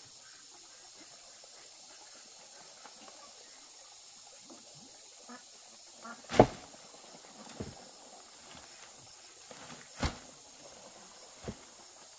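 Dry leaf thatch crackling and rustling under hands and knees, with a sharp wooden knock about six seconds in and another about ten seconds in as a long wooden pole is laid down and set on the roof, plus a few lighter taps.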